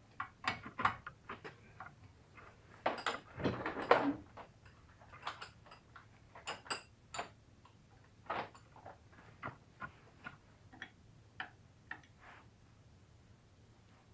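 Irregular clicks, knocks and clinks of metal hand tools and parts being handled, with the loudest cluster of knocks about three to four seconds in.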